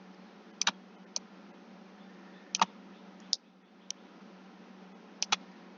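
Computer mouse clicking: about half a dozen sharp clicks spread through, several in quick pairs, over a steady low electrical hum.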